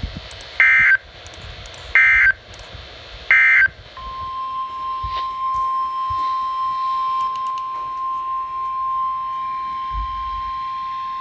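Three short Emergency Alert System SAME digital data bursts, the end-of-message code that closes a NOAA Weather Radio alert, about a second and a half apart. About a second after the last burst, the steady 1050 Hz Weather Radio warning alarm tone starts and holds.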